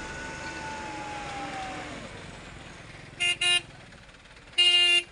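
Truck horn sounding two short toots about three seconds in, then one longer toot near the end, after the truck's engine has quietened with a slowly falling whine.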